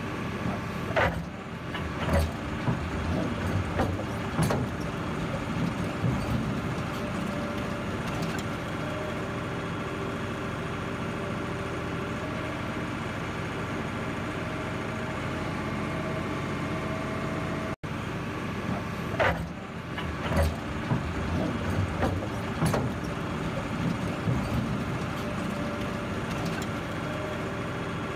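Heavy earthmoving machine's diesel engine running steadily, with sharp knocks now and then. The sound cuts out for an instant about two-thirds of the way through, then carries on.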